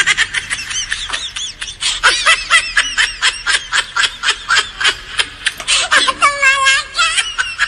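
A young woman laughing hard in quick high-pitched peals, about three or four a second, with a few longer drawn-out squeals of laughter near the end.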